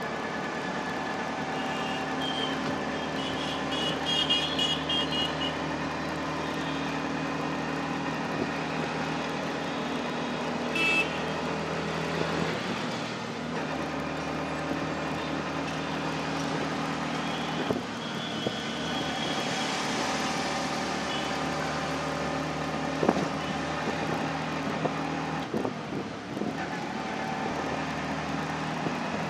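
Auto-rickshaw's small engine running steadily as it drives through traffic, heard from inside the open cabin, with a few brief higher-pitched sounds from the traffic around it.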